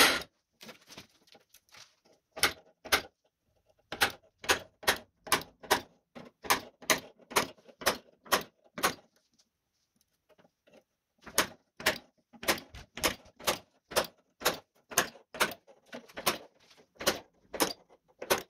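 Hammer tapping a centre punch into a square metal pipe, marking the hole spots for drilling: a steady run of sharp metallic taps about two a second, with a pause of about two seconds midway.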